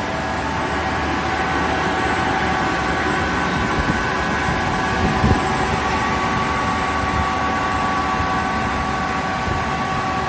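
Kaeser SK 25 SFC 15 kW rotary screw air compressor with inverter drive running steadily under load, compressing air into the receiver: a constant hum with a steady whine of several tones over rumble and air hiss. A brief knock about five seconds in.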